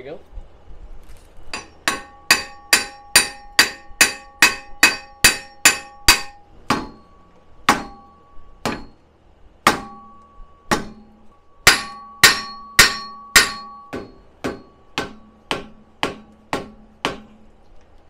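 Hammer blows on a Subaru XV Crosstrek's steel rear wheel hub, each strike ringing. The strikes come in runs of about two a second, with slower single blows between. The hub is rusted fast to the drive shaft's joint and does not come free.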